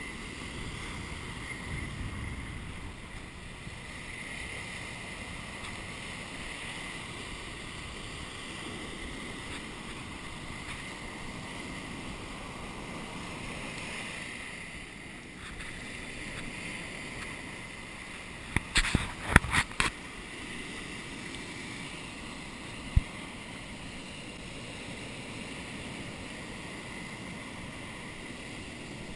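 Surf breaking on the beach and wind, a steady wash of noise. About two-thirds of the way in comes a quick run of sharp clicks, and a single click follows a few seconds later.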